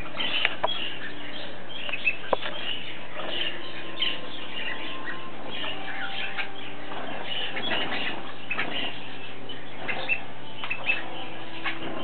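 A roomful of small cage birds chirping and twittering constantly, with many quick overlapping calls and a flutter of cockatiel wings.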